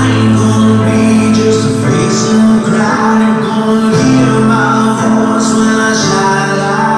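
Slow backing music with a sung vocal over sustained chords.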